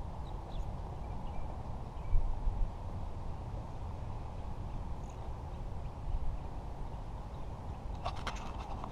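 Steady low outdoor background rumble, with a few faint sharp taps near the end.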